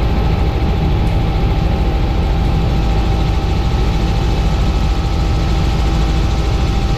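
Helicopter cabin noise in flight: the rotor and engine make a loud, steady drone, with a thin steady whine above it.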